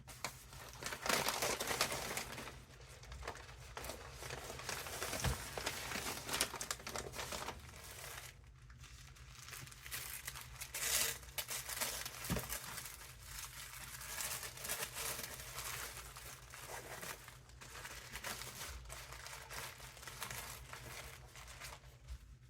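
Paper crinkling and rustling on and off as items are handled and unwrapped from a package.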